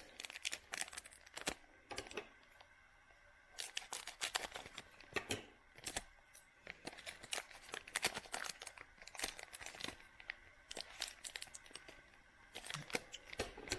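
Foil trading-card pack wrapper crinkling and being torn open by hand, with irregular crackles and clicks that pause briefly twice.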